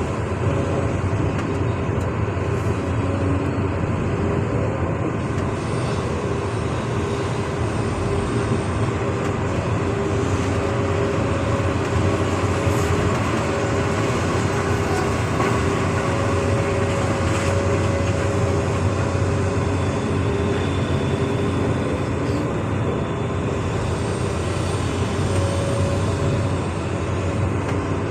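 Excavator's heavy diesel engine running steadily under load, with a faint whine that comes and goes.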